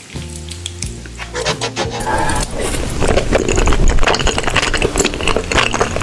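Close-miked crunching and crackling: dense sharp crackles start about a second and a half in and grow louder, over background music with steady notes.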